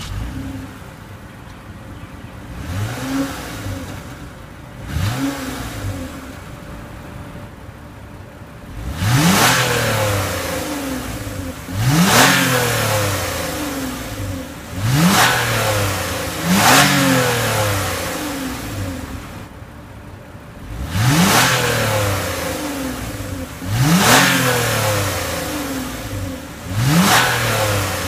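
2015 Toyota Camry XSE's engine and exhaust being revved repeatedly at a standstill, each rev rising quickly in pitch and falling away more slowly. Two light blips come first, then about seven stronger revs a few seconds apart from about nine seconds in.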